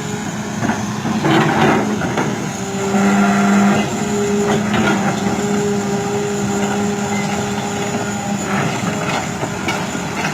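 Excavator's diesel engine running at a steady pitch, with a few short knocks or rattles over it.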